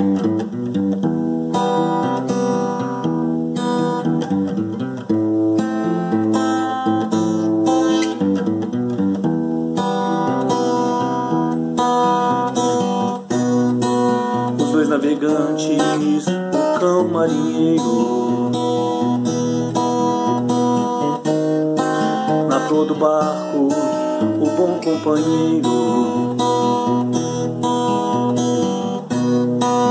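Acoustic guitar playing an instrumental passage of a song, with strummed chords and plucked notes.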